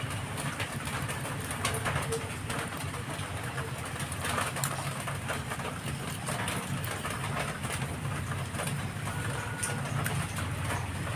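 Kitchen knife scraping and cutting through a whole fish on a stone floor: a run of rough, irregular scrapes and clicks, over a steady low hum.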